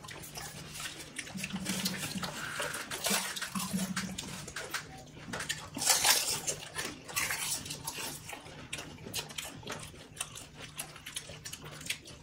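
People eating panipuri at speed: crisp puri shells crunching and the spiced water inside slurped and chewed, in irregular wet, crackly bursts.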